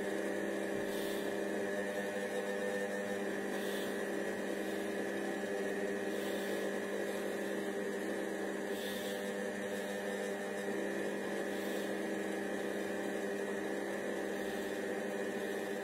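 Cecotec Mambo 8590 kitchen robot running at 100 degrees on blade speed 1 while it cooks onion and celery in oil: a steady electric hum, with a faint soft sound repeating about every three seconds.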